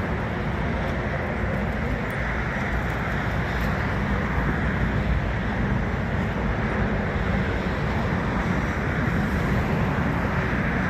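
Steady roar of distant jet airliners taxiing on the airfield, mostly low rumble with no clear engine whine.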